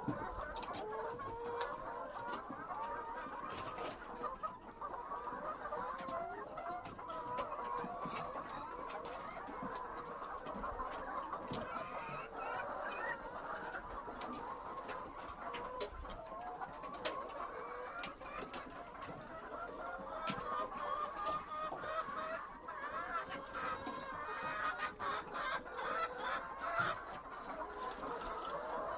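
A flock of laying hens clucking and chattering continuously while feeding on chopped tomatoes, with many short sharp taps mixed in.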